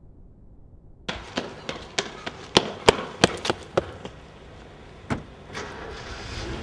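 Hard footsteps on paving, fast and even at about three a second, starting abruptly about a second in. A rising rushing noise follows near the end.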